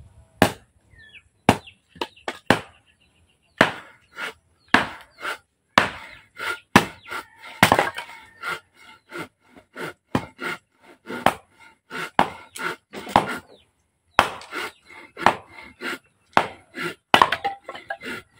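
Hatchet blows splitting firewood: repeated sharp chops of a steel blade into wood at an irregular pace, sometimes one a second, sometimes several in quick succession.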